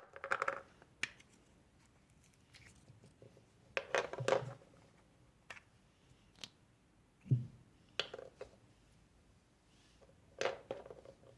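Slime being squished and mixed by hand, in about five short bursts of clicking, crackling pops with quiet gaps between, and a dull thump about seven seconds in.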